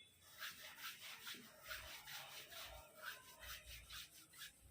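Faint, quick rubbing strokes of hands and thumbs on the skin around a knee, about three a second, as the kneecap is worked in small movements.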